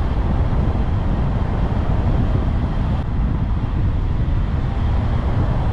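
Steady wind buffeting the microphone together with the road noise of a moving car, a constant low rush with no other distinct sounds.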